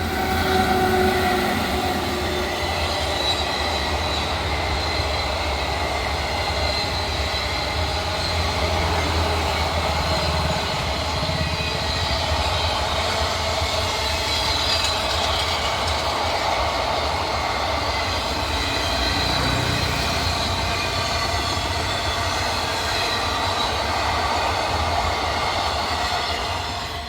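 Passenger express train rolling slowly past over the track, its wheels grinding and squealing steadily against the rails as it crawls through a temporary speed restriction.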